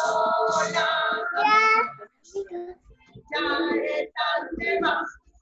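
A high, childlike voice singing in two short phrases, with a pause of about a second between them.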